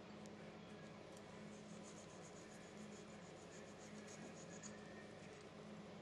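Near silence: faint room tone with a steady low hum, and a run of faint light ticks, about five a second, starting about a second and a half in and lasting about three seconds.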